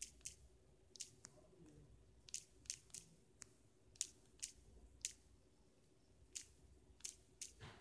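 Faint, sharp taps of a finger on a smartphone's touchscreen keyboard while typing digits, coming irregularly and often in quick runs of two or three.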